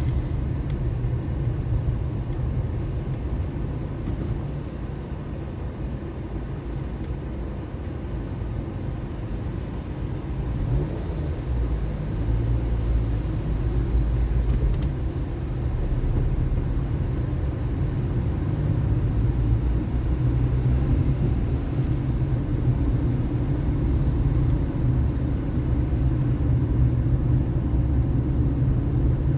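A car's engine and road noise while driving, a steady low rumble that grows a little louder about twelve seconds in.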